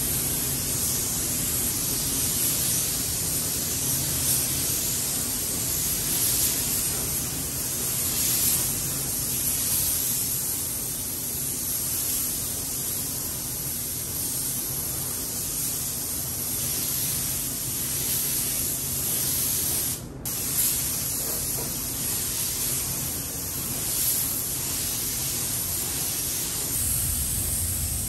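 Compressed-air paint spray gun hissing steadily as clear coat is sprayed over the car's paint. The hiss breaks off for a moment about two-thirds of the way through.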